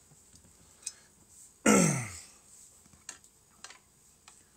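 A short, throaty vocal sound that falls in pitch, about a second and a half in and the loudest thing here. A few faint clicks follow as the hot knife is handled.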